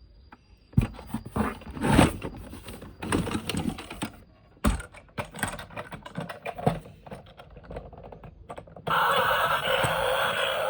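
Irregular clicks, snaps and crinkling of toy vehicles and plastic packaging being handled. About nine seconds in, a loud, steady electronic sound from a battery-powered toy switches on.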